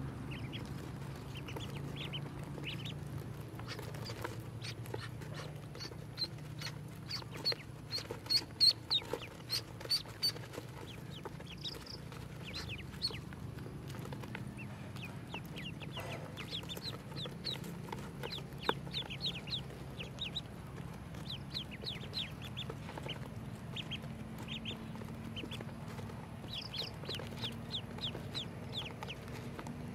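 A brood of ducklings peeping, a constant chorus of many short, high chirps that slide downward. A run of sharp taps stands out between about seven and ten seconds in.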